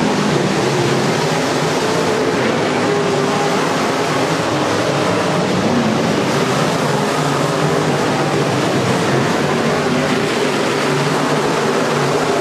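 Several dirt-track race car engines running together at racing speed, a loud steady drone of overlapping engine notes that rise and fall as the cars go round.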